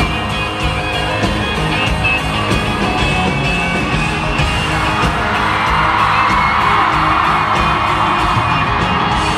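Live country-rock band playing loud, electric guitar over a steady drum beat, as heard from the audience.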